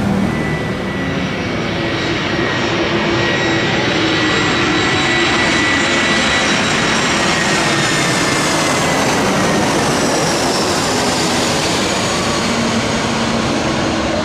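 Airplane engines running loud, a steady roar with a high turbine whine that slowly drops in pitch.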